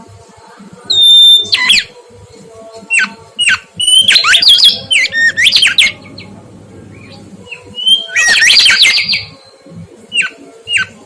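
Mangrove whistler singing: loud, clear whistled notes that sweep up and down, in several short phrases separated by brief pauses.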